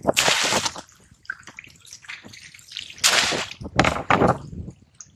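Water splashing as a mesh crab trap is hauled up out of the water on its rope: a splashing burst near the start, then water dripping and sloshing, and a bigger double splash about three seconds in as the trap breaks the surface.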